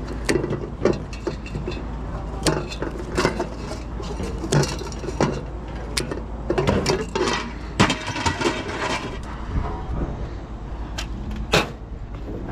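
Scrap metal pieces clanking and knocking irregularly as they are handled and sorted.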